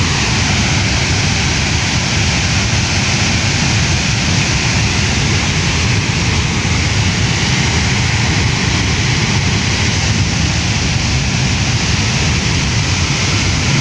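Swollen, muddy river in flood rushing past in a loud, steady torrent of turbulent water.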